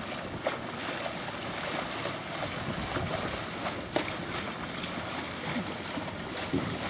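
Steady wind rushing over the microphone, with water washing and lapping around the hulls of sailboats under way and a few small knocks.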